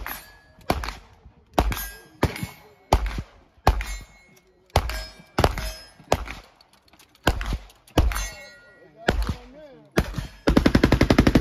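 Gunfire on a shooting range: single shots every half second to second, each followed by the ring of struck steel targets, then a rapid burst of fully automatic fire near the end.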